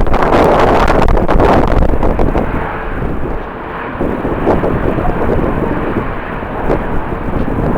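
Jet airliner engine noise, loudest in the first two seconds, mixed with strong wind buffeting the microphone.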